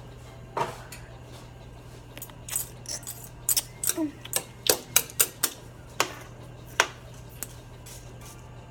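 A run of sharp clicks and light knocks, coming thick and fast in the middle, over a steady low hum.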